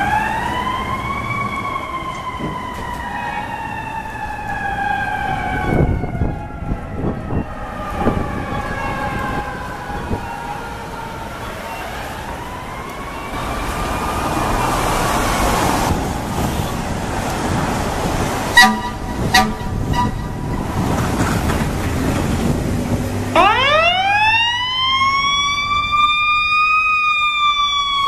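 Fire apparatus sirens wailing: a siren winds up and slowly falls in pitch, rises and falls once more, then winds up sharply again near the end. Two short horn blasts come around the middle, over the noise of traffic and diesel engines.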